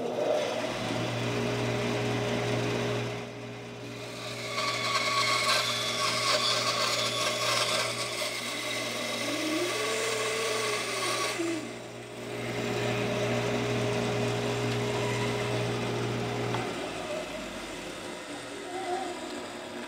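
Bandsaw running and cutting through a strip of walnut stock to slice the drilled bungs (wooden plugs) free. The cutting comes in long passes, dropping briefly between them. The motor is switched off about three seconds before the end and winds down.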